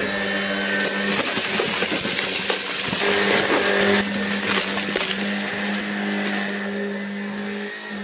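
Shark Stratos cordless stick vacuum running on carpet: a steady motor hum over a rush of air, with shards of broken glass ticking and clattering as the brush head picks them up and kicks some out the back.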